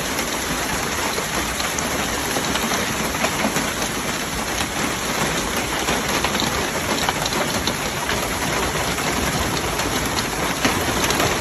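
Hail and heavy rain pelting a hard surface: a dense, steady patter of countless small impacts.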